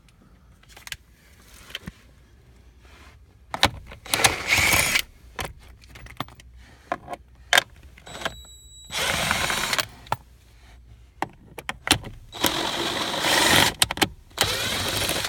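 A tool backing out the 7 mm screws of a car's steering column cover, in loud runs about a second long several times, with clicks and knocks in between.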